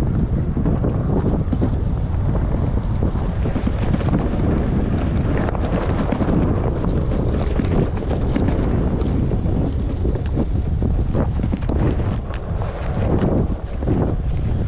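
Wind buffeting the microphone while riding an e-bike over rough off-road ground, a loud steady rumble with scattered knocks and rattles. The wind eases briefly about twelve seconds in.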